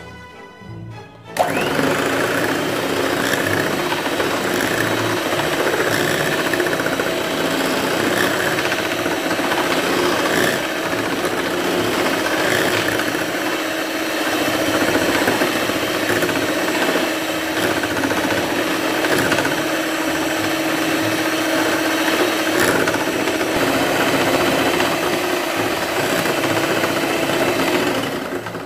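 Electric hand mixer switched on about a second in and running steadily, its twin wire beaters whisking cake batter with a constant motor hum. It switches off right at the end.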